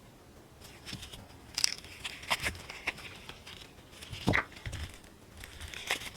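Flexible silicone mold being flexed and peeled away from cured resin cat-paw pieces: scattered crackling and a few sharp clicks as the resin pops free.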